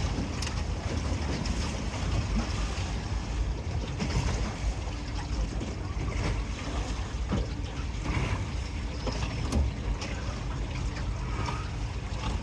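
A river cruise boat under way: wind buffeting the microphone over water rushing past the hull, with a steady low rumble.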